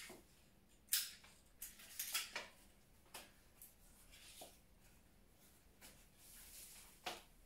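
Light, scattered clicks and rustles of flower stems and foliage being handled and set into a floral arrangement, with a longer soft rustle about six seconds in.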